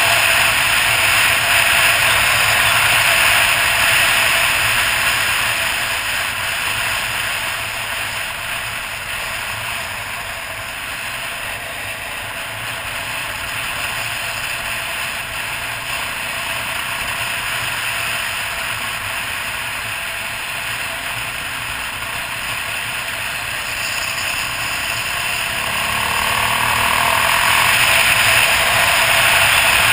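Wind and road noise buffeting a camera on a moving Suzuki DR800 motorcycle, with the big single-cylinder engine running underneath. It eases off through the middle and grows louder again near the end.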